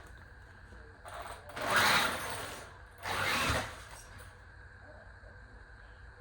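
Electric drive motor of an MJX Hyper Go 16210 RC truck given two short throttle bursts, spinning its paddle tires. The first whir starts about a second in and lasts about a second and a half. A shorter one follows about three seconds in.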